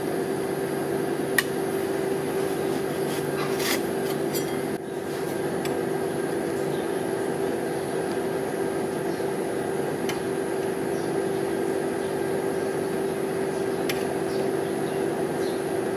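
Steady hum of a rolled-ice-cream machine's refrigeration unit under the frozen steel plate, with a metal spatula scraping across the plate at first and a few sharp clicks of metal spatula and tongs scattered through.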